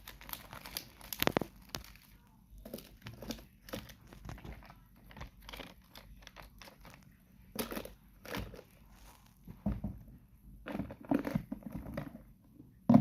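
Plastic food packaging crinkling and rustling as items are handled and set down, with scattered light knocks and clicks.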